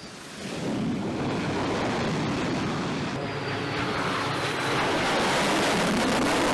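F/A-18 Super Hornet's jet engines as it lands with its tailhook down: a loud, steady rushing jet noise that comes up sharply about half a second in and swells a little near the end.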